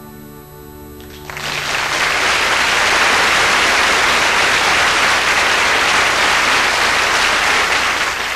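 A held musical chord dies away, and about a second in an audience bursts into loud, sustained applause.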